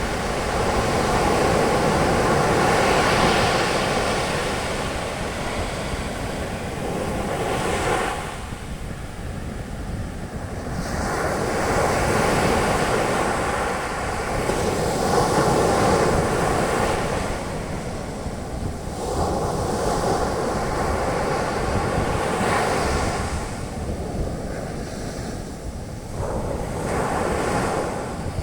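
Ocean surf: waves breaking and their foam washing up the beach, swelling and ebbing in slow surges several seconds apart.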